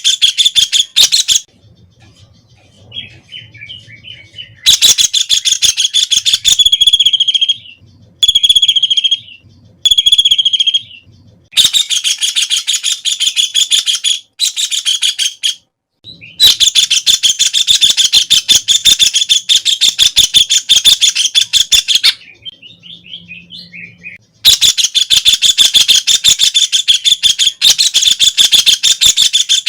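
White-throated kingfisher (Halcyon smyrnensis) calling in long, fast, rattling trains of repeated notes. The trains come in several bouts of one to six seconds with short pauses, and softer calls fill some of the gaps.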